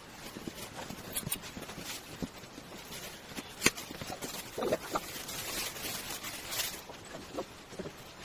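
Handling noises of packaging and plastic parts: scattered taps and clicks, one sharp click about three and a half seconds in, and rustling from about five to nearly seven seconds in.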